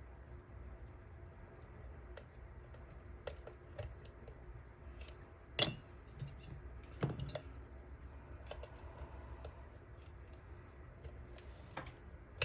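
Small metallic clicks and taps of a pick and tension tool working the pins of a dimple lock cylinder, irregular and scattered. A sharper, louder click comes about five and a half seconds in, and a short cluster of clicks a second later.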